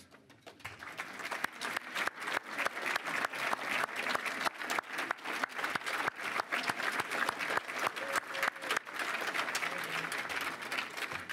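Audience applauding, a dense mass of hand claps that swells up in the first second and tapers off near the end.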